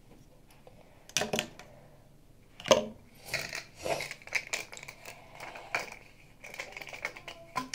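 Plastic small-animal water bottle being handled, with clicks, knocks and scrapes as its red cap with metal drinking spout is unscrewed. The sharpest knock comes about two and a half seconds in.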